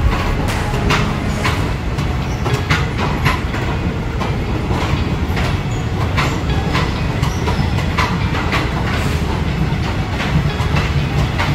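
Passenger coaches rolling slowly along the track, steel wheels clacking irregularly over rail joints and points above a steady low rumble.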